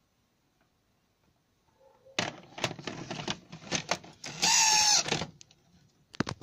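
Opened VCR's tape-loading mechanism working: a run of plastic-and-metal clicks and clatter, with a loud, brief motor whine in the middle of it, after about two seconds of near quiet.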